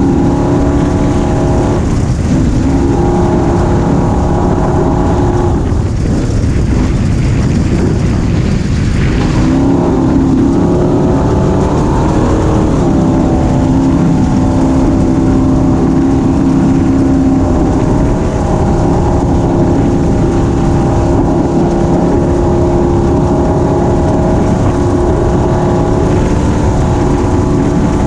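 Small 250cc engine running under throttle, its pitch falling and climbing again a few times as the throttle is eased and opened, over heavy wind rumble on the mic.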